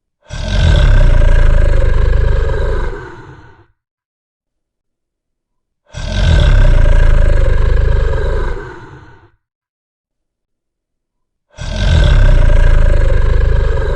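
Dragon roar sound effect, a deep, rasping roar repeated three times about every five and a half seconds, each lasting about three seconds and tailing off, with silence between.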